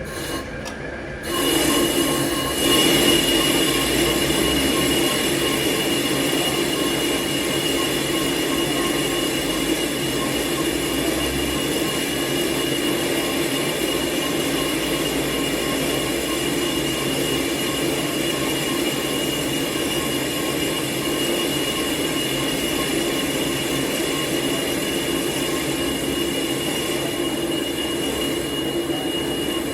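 Lathe turning a motor pulley, the cutting tool on the spinning workpiece giving a steady high-pitched squeal over a rough hum. It starts about a second in and holds steady.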